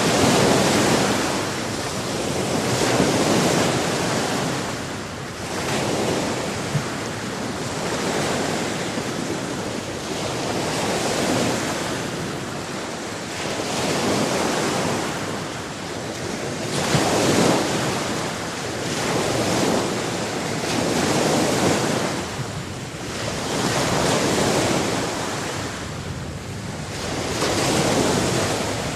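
Sea waves breaking and washing on the shore, a steady rush of surf that swells and ebbs in surges about every three seconds.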